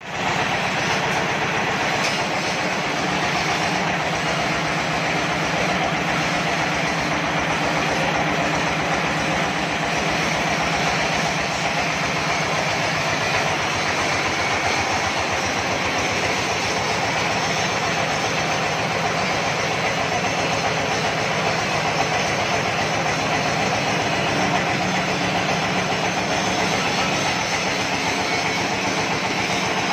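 A 26 hp diesel engine on a mobile circular sawmill running steadily with a fast, even pulse, driving the 70 cm saw blade, which spins free with nothing being cut.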